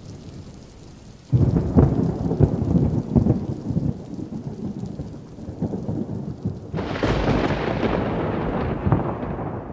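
Thunder: a sudden crackling clap a little over a second in that rumbles on, then a second, brighter peal near the end that slowly fades, with rain in the background.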